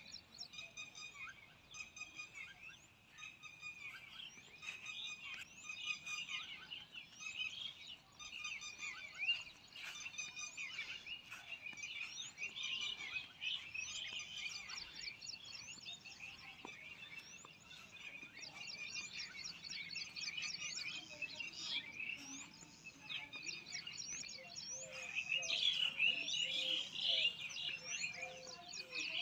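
Many small birds chirping and twittering together in a dense, continuous chorus of short high notes. The chorus grows a little louder near the end.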